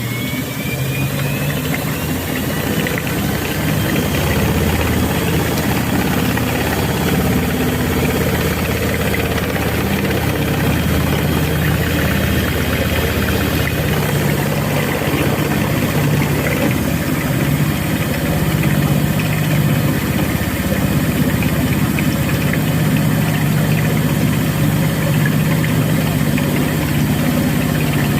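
Thomson washing machine running a spin: a motor whine rising in pitch over the first few seconds, then a steady, loud mechanical hum and vibration.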